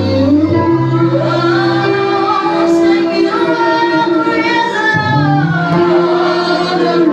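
Praise and worship song: voices singing long held notes over instrumental accompaniment, whose low notes change a few times.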